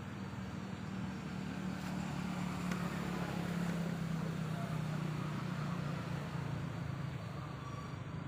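Low engine hum that swells about two seconds in and eases toward the end.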